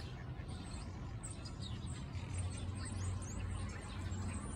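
A flock of small birds chirping, many short overlapping calls, over a steady low background hum.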